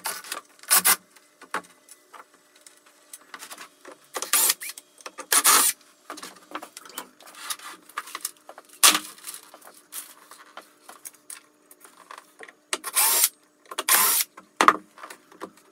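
Intermittent sharp metallic clinks and rattles of tools and bolts being handled while fitting aluminium end plates to a CNC router frame, in about eight short separate bursts over a faint steady hum.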